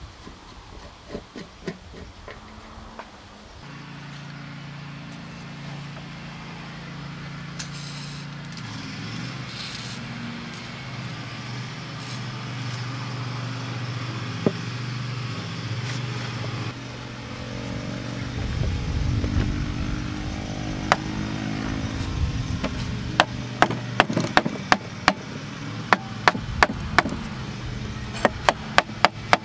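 A steady low engine drone, like a vehicle running, fills most of the stretch. Over the last several seconds a wooden mallet knocks repeatedly on the handle of an old crosscut saw to drive it off the blade, a quick run of sharp taps about two or three a second.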